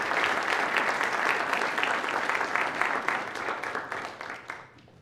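Lecture-hall audience applauding, a dense patter of many hands clapping that thins out and dies away near the end.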